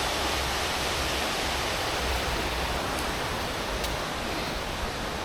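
Steady rushing of the Düden Waterfall's falling water, an even hiss with a low rumble underneath.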